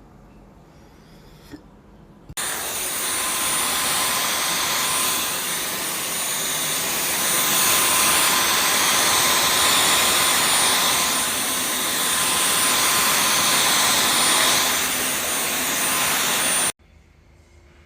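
Dyson V12 Detect Slim cordless stick vacuum switched on about two seconds in, its motor running with a steady rushing noise and a thin high whine, then cut off suddenly near the end.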